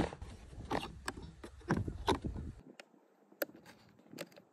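A few knocks from handling a Beretta plastic hard pistol case, then small separate clicks as a thumb rolls the number wheels of its combination lock.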